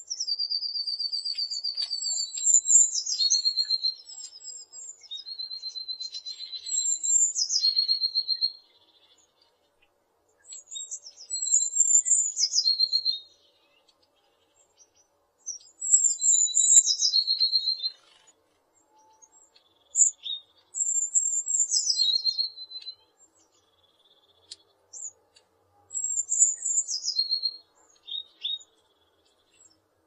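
Blue tit singing: repeated phrases of high, thin notes falling into a quick, lower trill, several phrases separated by short pauses.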